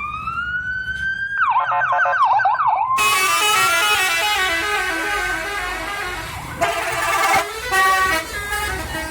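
Bus 'telolet' musical air horn playing. It starts as one rising tone, breaks into a fast siren-like warble, then from about three seconds in several horn tones step through a melody together.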